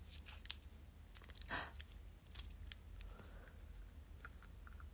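Faint small clicks and rustles of hawthorn flakes being handled and eaten, with a brief rustle about one and a half seconds in and a bite near the end.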